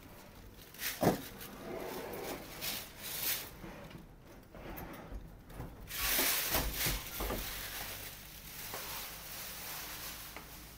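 A built-in oven being slid into its wall-cabinet niche: rubbing and scraping of the oven casing against the cabinet, with a sharp knock about a second in.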